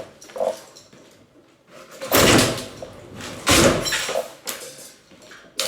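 Two heavy crashing impacts of demolition work, about a second and a half apart, each lasting about half a second, with lighter knocks around them.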